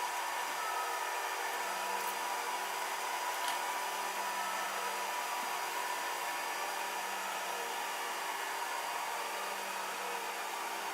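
Kossel delta 3D printer running a print: a steady fan-like hum with faint stepper-motor whines that rise and fall in pitch as the carriages move.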